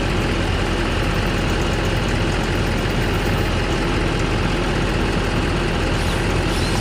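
An engine idling steadily, an even, unbroken running hum.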